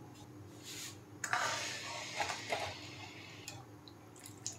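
Kitchen utensil sounds in a cooking pan: a stretch of scraping and clinking about a second in, lasting about two seconds, then a few light clicks.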